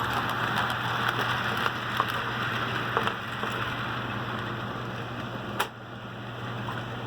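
An HO-scale model locomotive runs at a slow setting on the layout's track, giving a steady hum with scattered light clicks. A sharper click comes a little before the end, after which the sound gets somewhat quieter.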